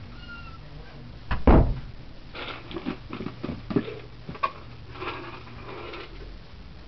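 Kitchen clatter as a cat's meal is readied: one heavy thump about one and a half seconds in, then a run of light clinks and knocks from dishes being handled.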